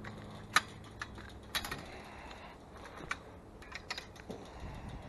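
Footsteps on snow and frozen ground: a few sharp, irregularly spaced crunches, the loudest about half a second in.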